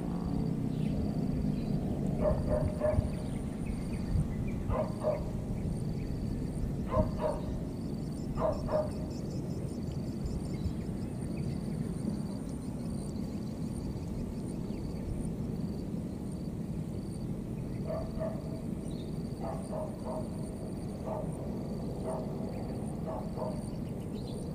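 Baby monkeys giving short, high cries, a few at a time, in two clusters with a gap of several seconds between, over a steady low rumble.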